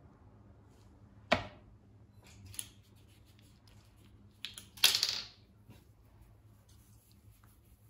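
A few sharp knocks from objects being set down or handled: one about a second in, a couple of faint clicks, and a louder, briefly ringing clatter about five seconds in.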